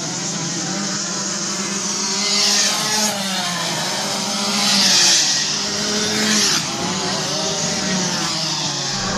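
Several two-stroke Rotax Max dirt karts racing past, their engines rising and falling in pitch as they accelerate and lift off for the corners. The sound swells loudest about two and a half seconds in and again around five seconds in, as karts pass close by.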